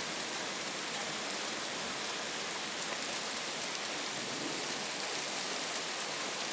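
Steady rain from a thunderstorm, an even hiss with no thunder.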